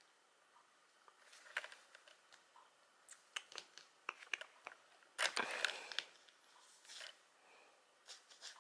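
Soft, irregular scratching and clicking of fingers working over a wooden floor, with a louder scraping flurry about five seconds in.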